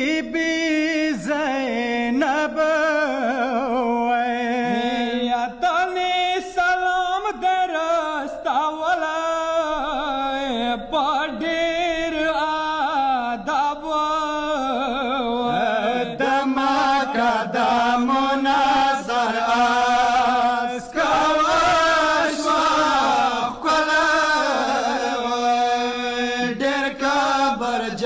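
A group of men chanting a Pashto noha, a Muharram mourning lament, together at a microphone. The voices hold long, wavering melodic lines with no instruments.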